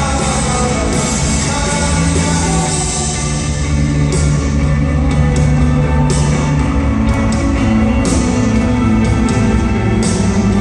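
Live rock band playing, with guitars and a heavy sustained low end. Sharp drum hits come in about four seconds in and recur roughly every half second to a second.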